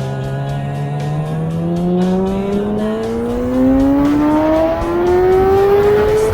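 Kawasaki ZX-6R inline-four sport-bike engine accelerating hard in one gear, its pitch rising steadily for about six seconds before dropping at an upshift right at the end.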